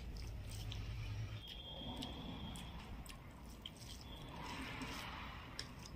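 Eating sounds up close: chewing, with the soft squish of fingers mixing rice and tomato curry on a plate and scattered small clicks. A low hum underneath stops about a second and a half in.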